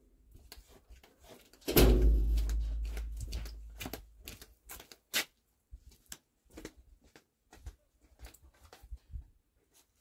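Kitchen handling sounds while straining pine cone syrup: one loud thud about two seconds in that dies away over about two seconds, then scattered light knocks and clicks.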